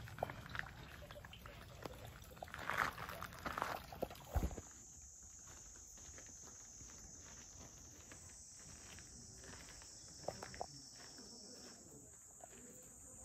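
Irregular scuffs and crunches on gravel, ending in a low thump about four seconds in. Then a steady high-pitched insect drone with a faint pulsing, its pitch stepping up slightly near the end.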